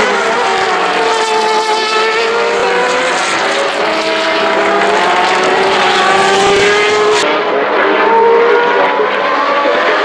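Several open-wheel single-seater race car engines at high revs running through a corner and passing one after another, their overlapping pitches rising and falling with throttle and gear changes.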